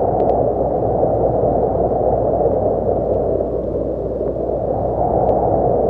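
Steady rushing noise drone with a low hum beneath it: a dark ambient sound bed. A couple of faint clicks come just after the start and one near the end.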